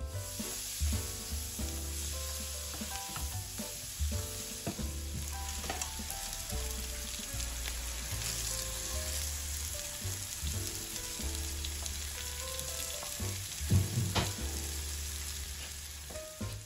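Food frying and sizzling in a pot while it is stirred, with a few sharp knocks of the utensil against the pot, the loudest near the end. A music bass line runs low underneath.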